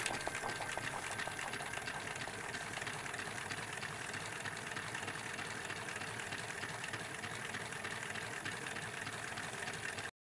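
Home-made V12 solenoid engine running at speed: a fast, steady mechanical clatter like a sewing machine, which cuts off abruptly near the end.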